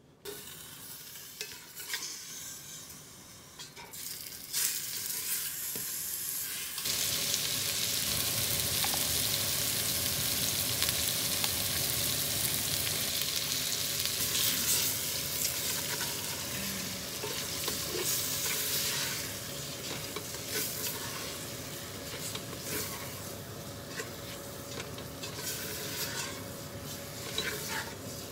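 Chunks of meat frying in oil in a stainless steel pot, sizzling steadily while a spatula stirs and scrapes them. The sizzle starts suddenly about a quarter of the way in, after a few light taps and rattles, and eases off in the last third.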